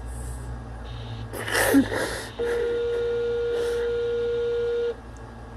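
A person crying draws a short, wheezy sniffling breath. Then a steady electronic beep sounds for about two and a half seconds and stops suddenly.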